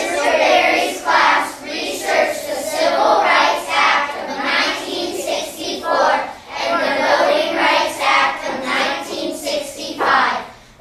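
A group of children singing together, with a short break near the end.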